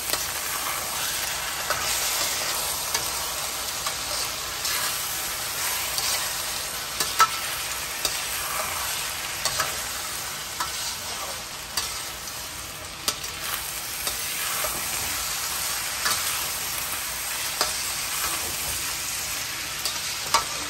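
Mung, red lentils and chana dal sizzling in oil in a stainless steel pan as they are fried dry (bhuna), stirred with a metal spatula. A steady hiss runs under frequent clicks and scrapes of metal on the pan, with a few sharper taps standing out.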